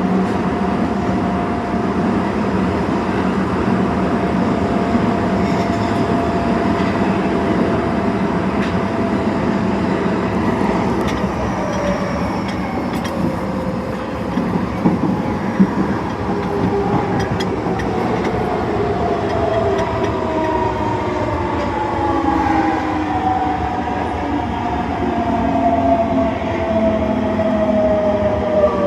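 Osaka Metro Tanimachi Line 22 series subway car running with a high-pitched motor whine. The whine holds steady at first, then falls in pitch through the second half as the train slows, with a few sharp clicks from the wheels on the track midway.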